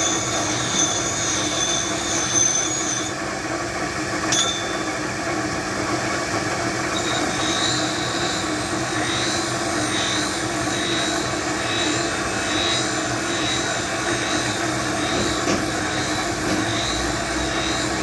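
Steady noise of workshop machinery running, dense and unbroken, with no distinct hammer blows. Through the second half a faint high whine pulses a little faster than once a second, and there is a single sharp click about four seconds in.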